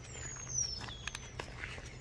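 Footsteps crunching on a gravel path in short irregular clicks, with a bird's falling whistle about half a second in.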